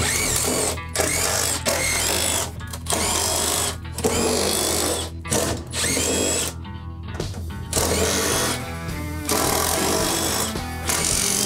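Cordless drill-driver running in repeated short bursts, spinning up at the start of several of them, as it backs out the screws holding aircraft floor panels; background music underneath.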